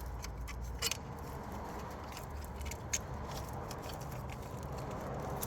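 Light clicks and rattles of a wiring-harness connector being plugged in and handled, with a sharper click just before a second in and another near three seconds, over a steady low hum.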